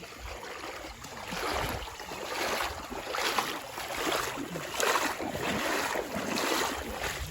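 Water rushing and splashing around a boat crossing floodwater, swelling in repeated surges about once a second, with wind buffeting the microphone.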